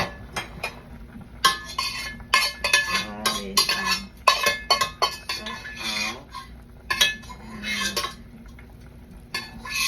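A utensil clinking and scraping against a pot and bowl in a run of sharp knocks, as cooked food is emptied from the pot. There is a quieter gap at the start and another near the end.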